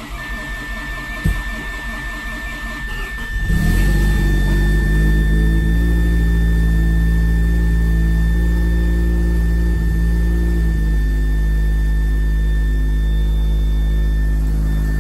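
Mazda RX7 (FD) twin-rotor rotary engine, fitted with an aftermarket exhaust, being cold-started in deep sub-zero cold. It cranks, catches about three and a half seconds in, and then runs at a loud, steady fast idle. A thin, steady high tone sounds over it throughout.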